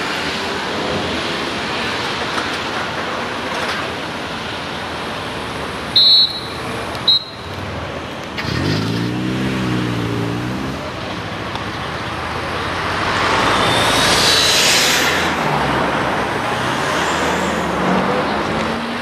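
Road traffic: cars and vans driving past one after another, swelling as one passes close about three-quarters of the way through. Two short, loud high beeps about a second apart near the middle, and a brief low wavering drone just after them.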